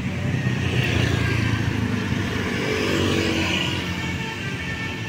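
Heavy bus engine running with a low rumble, loudest between about one and three and a half seconds in, then easing off.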